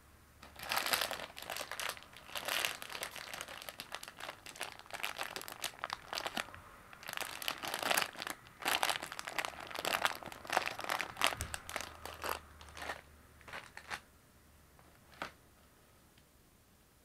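Plastic and foil packaging crinkling and rustling as a bag of gummy sweets and other goods are handled and lifted out of a cardboard box. The crinkling is thick for most of the time, then thins out to a few scattered clicks near the end.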